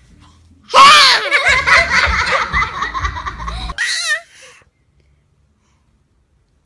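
Loud laughter starting about a second in and lasting about three seconds, followed by a short burst of laughter.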